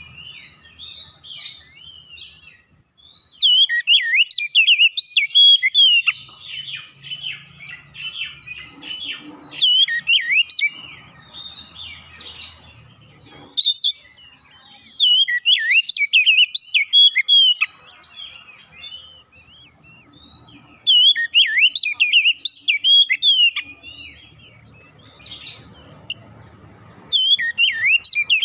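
Oriental magpie-robin (kacer) singing: loud bursts of rapid, varied whistled phrases about four times, with quieter twittering between them.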